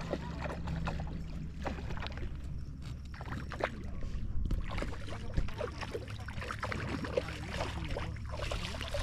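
Steady low motor hum with scattered light knocks and water sounds over it.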